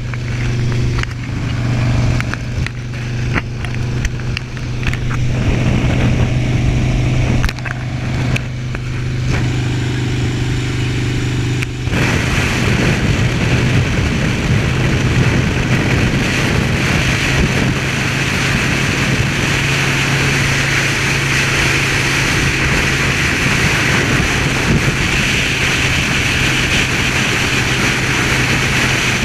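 Motorcycle engine running with a steady low hum, with a few knocks, for about the first twelve seconds. Then a sudden switch to heavy wind rush on the camera microphone over the engine as the bike rides at highway speed.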